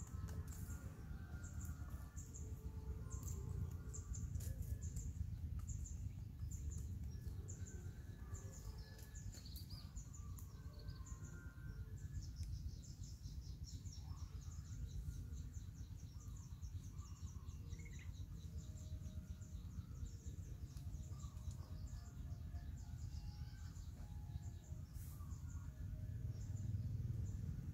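Outdoor ambience: several birds chirping and calling, with many short high chirps, over a steady low rumble.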